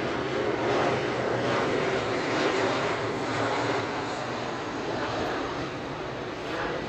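Boeing 737 jet airliner passing low overhead, its engines making a steady broad rush of noise that slowly fades as it moves away.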